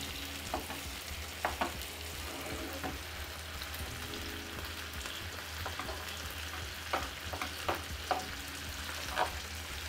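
Canned pork stew with its fat and broth sizzling in a frying pan over browned onion while it is mashed up with a spatula and fork, with scattered light clicks and scrapes of the utensils against the pan.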